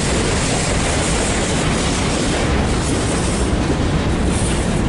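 Covered hopper cars of a BNSF freight grain train rolling past close by: a loud, steady rumble of steel wheels on the rails.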